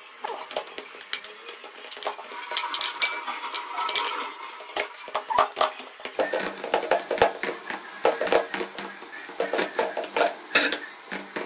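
Hands kneading samosa dough in a stainless steel bowl: irregular knocks, taps and scrapes of knuckles and dough against the steel.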